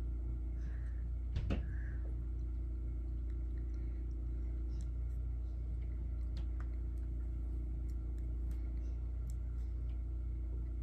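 Steady low electrical-sounding hum of room tone, with one brief knock about one and a half seconds in and a few faint clicks.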